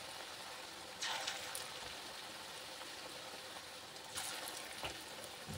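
Pakora batter deep-frying in hot mustard oil in an iron kadhai, a steady sizzle. It surges briefly about a second in and again around four seconds, as more batter goes into the oil.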